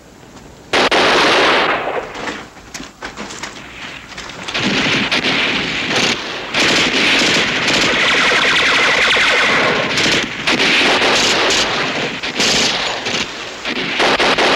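Heavy gunfire from several weapons, with bursts of automatic fire and single shots overlapping. It starts suddenly about a second in and keeps going, with brief lulls.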